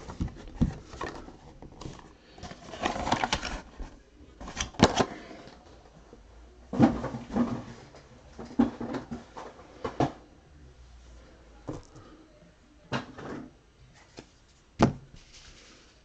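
Hands handling cardboard trading-card boxes on a table: scattered rustles, scrapes and light knocks as the small boxes are pulled from the case and set down in a stack.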